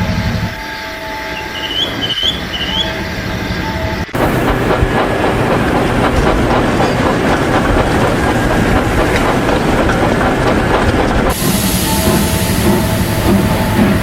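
Edited train sound effects: a train running on the rails. A quieter stretch with a steady hum cuts abruptly, about four seconds in, to the dense rattle and rush of a train going by, and the sound changes again near the end.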